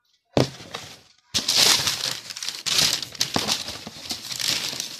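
Shoe packaging rustling and crinkling close to the microphone as it is handled. It starts suddenly about half a second in, pauses briefly near the one-second mark, then runs on unevenly.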